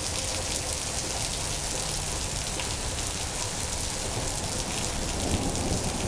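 Heavy rain pouring down steadily, with many close drops ticking on surfaces.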